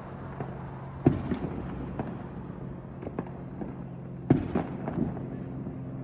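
Fireworks going off at a distance: scattered bangs and pops, the two loudest about a second in and a little after four seconds, over a steady low hum.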